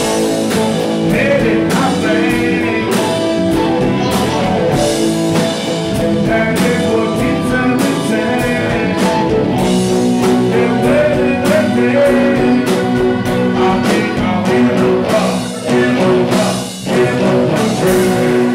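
Live rock band playing: electric guitars, bass guitar and drum kit, with a singer's voice over them.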